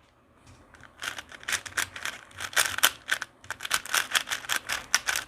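A plastic puzzle cube being turned quickly by hand: a fast run of plastic clicks and rattles, several a second, starting about a second in.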